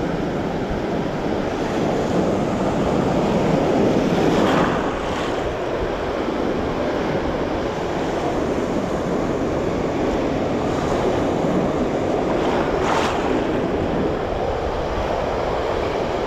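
Surf washing and breaking in the shallows, with wind buffeting the microphone. The water swells about four seconds in and gives a brief sharper rush about thirteen seconds in.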